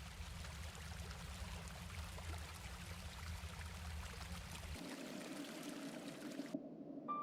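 Mountain stream water rushing and splashing over rocks. For the first few seconds it has a heavy low rumble; the sound changes character after about four and a half seconds, and music tones come in right at the end.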